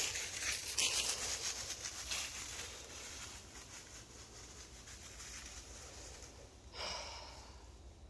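Rustling and crackling, loudest at first and fading over the first few seconds, with a short sharp sound about seven seconds in.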